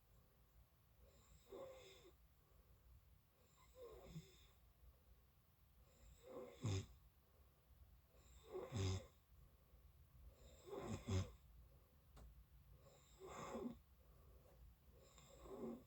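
A sleeping person snoring, one snore about every two seconds, seven in all, the three in the middle the strongest.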